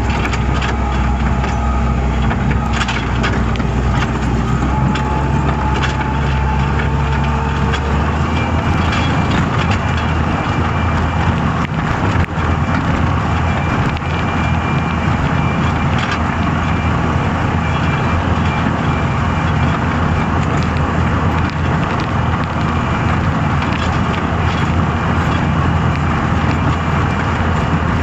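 Skid steer loader's engine running under work, its pitch rising about eight seconds in as it revs up, with scattered clicks and knocks.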